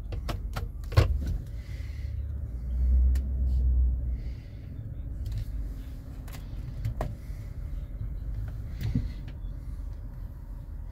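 Chevrolet Tahoe V8 idling, heard from inside the cab. Sharp clicks and knocks come through over it, the loudest about a second in. A louder low rumble swells for about a second and a half around three seconds in.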